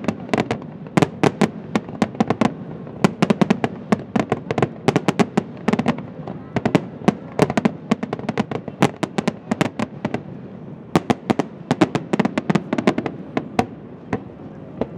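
Fireworks display: a dense, rapid run of bangs and crackles from aerial shells bursting, thinning out near the end.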